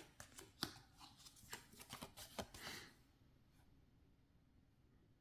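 Tarot cards being handled: a quick run of light card clicks and slides that stops about three seconds in.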